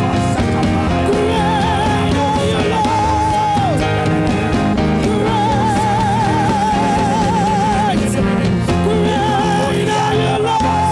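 Worship band music: a lead melody line held in long notes with wide vibrato, each sliding down at its end, over a steady full-band backing.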